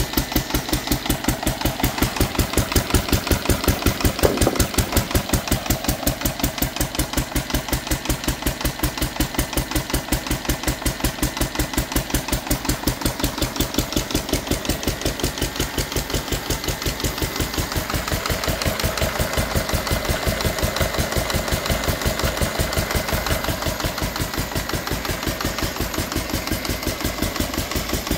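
Lister D single-cylinder stationary engine running steadily with an even firing beat while belt-driving a Honda E1500 generator.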